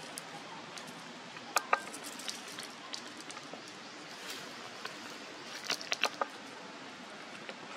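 Macaque drinking from a pond with its lips at the water surface: scattered small wet sips and clicks, a pair about a second and a half in and a quick cluster near the end.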